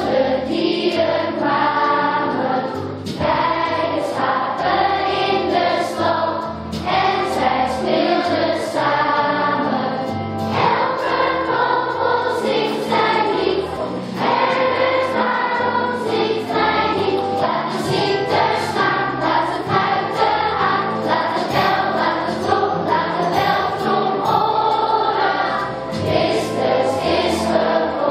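A children's choir singing a song, with held notes, carrying on through the whole stretch.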